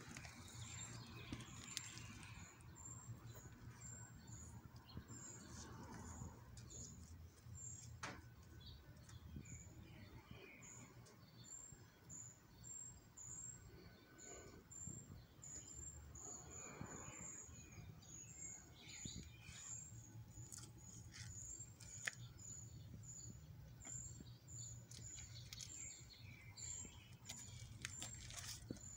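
Faint outdoor ambience with small birds chirping: short, high notes repeating a few times a second, with a few light clicks of handling noise.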